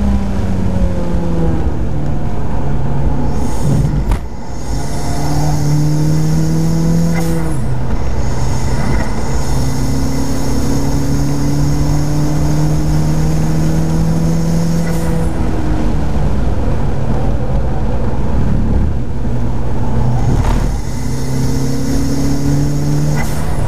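Turbocharged Mazda MX-5 engine heard from inside the open cockpit under hard acceleration. Its note climbs steadily through each gear, with gear changes about 4, 7.5, 15 and 20 seconds in, and a faint high whine above it in the middle stretch.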